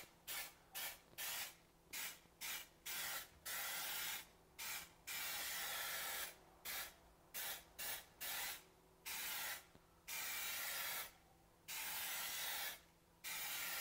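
Aerosol can of spray contact glue hissing in a run of many short squirts and several longer ones of about a second each.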